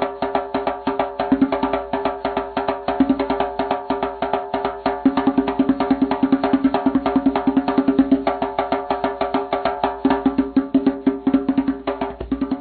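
Lovebirds crunching with their beaks: a fast, irregular run of sharp clicks, about eight to ten a second, over a steady low hum.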